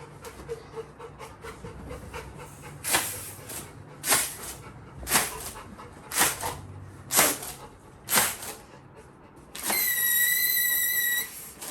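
A squeeze toy pumped about once a second, giving six short hissing puffs of air, then a single steady high-pitched squeak lasting about a second and a half near the end.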